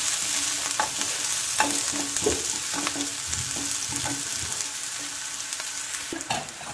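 Sliced onions and green chillies sizzling as they fry in ghee in a pan, while a spatula stirs and scrapes them, with irregular taps of the spatula against the pan.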